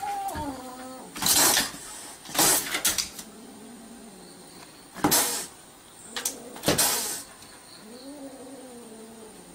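A kitten hissing at a dog, about four sharp hisses, with low drawn-out yowls rising and falling between them.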